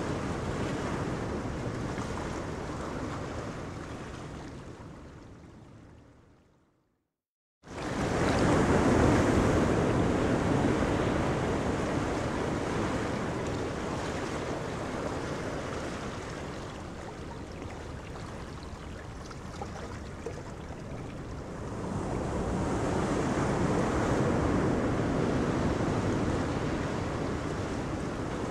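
Wind on the microphone and the wash of the sea, with small fishing boats running past at speed and throwing a wake. The sound fades out to a second of silence and cuts back in abruptly about seven and a half seconds in.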